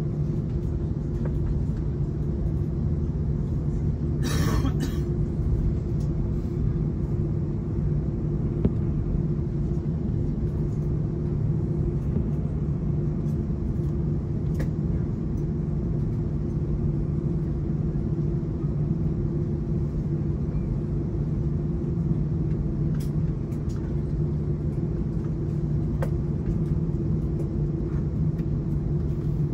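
Steady low rumble and hum inside the cabin of an Airbus A330-900 taxiing, its Rolls-Royce Trent 7000 engines at idle. A short noise cuts in about four seconds in.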